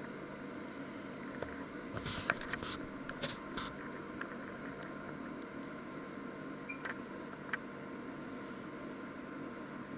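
Steady hiss of room noise, with a cluster of light clicks and rustles about two to four seconds in and two more single clicks a few seconds later.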